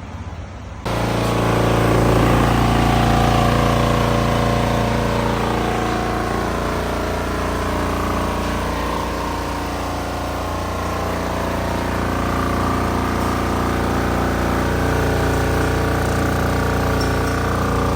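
Volkswagen Jetta engine idling. About a second in, the sound jumps abruptly louder into a heavy hum of many slightly wavering tones over a low rumble. This is the vibration and noise that appear when the AC is on.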